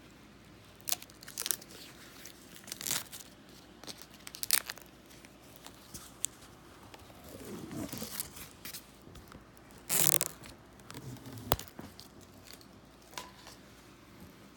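Paper and cardboard packaging being handled, with crinkling and tearing rustles and scattered light clicks and knocks. The loudest rustle comes about ten seconds in.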